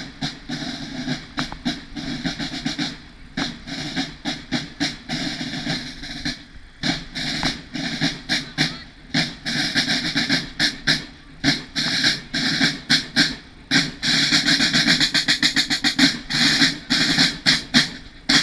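A buekorps drum corps playing a marching cadence on snare drums: rapid, even strokes with brief gaps, growing louder about three quarters of the way in as the drummers come closer.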